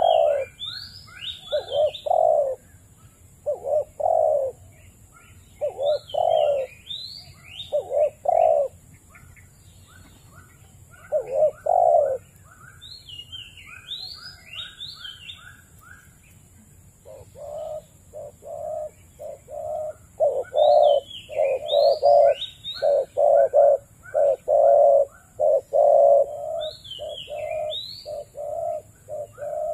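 Dove cooing in repeated low phrases, sparse at first and then in a fast, dense run through the second half, which fits the spotted dove (tekukur) in view. Another small bird's high, falling chirps and quick ticking notes sound over the coos.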